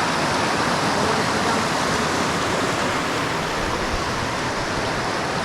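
Rushing water of a stream, a steady, unbroken noise.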